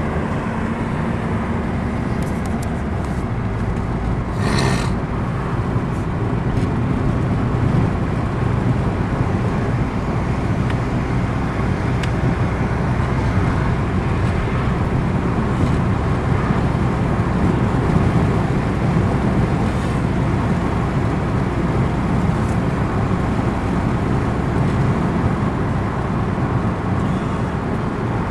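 Steady road noise of a car driving, with a low engine and tyre rumble. A short hiss cuts in briefly about four and a half seconds in.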